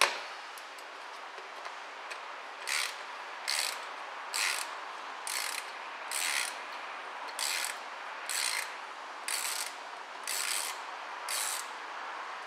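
Ratchet wrench undoing the drain plug on a ZF 6HP26 automatic transmission sump: a series of about ten short ratcheting bursts, roughly one a second, as the handle is swung back on each stroke.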